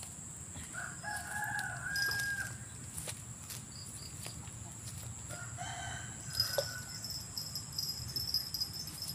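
A rooster crowing: one long crow starting about a second in and a shorter one around six seconds in, over a steady high-pitched drone.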